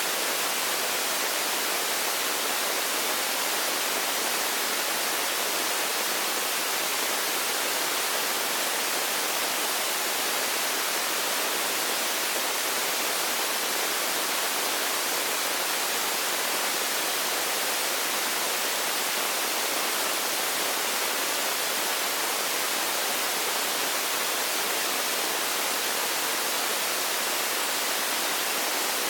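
Steady static hiss, even and unchanging throughout, with no other sounds.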